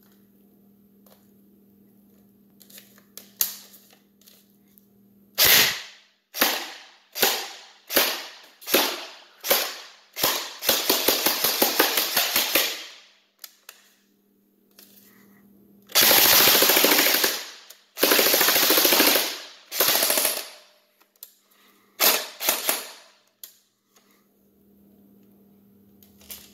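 CYMA P90 airsoft electric gun (AEG) on a 9.6 V NiMH battery firing: about seven single semi-automatic shots a little under a second apart, then a full-auto burst of about two seconds. After a short pause come three more full-auto bursts and a few last single shots, with a few faint clicks before the first shot.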